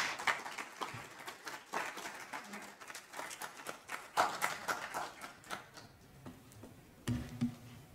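Audience applause at the end of a talk: many hands clapping irregularly, thinning out and dying away after about six seconds.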